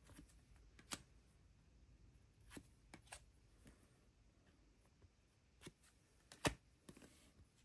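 Faint flicks and taps of trading cards being thumbed through in the hands and set down on a cloth playmat: a handful of soft, separate clicks, the loudest near the end.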